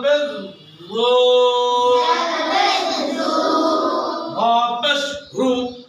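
A class of young boys reciting Arabic letter sounds with the pesh (damma) vowel in unison, a sing-song chant with long held notes and short breaks between phrases.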